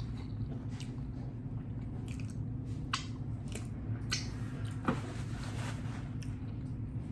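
Close-miked chewing of food, with wet squishy smacks and clicks of the mouth every second or so, over a steady low hum.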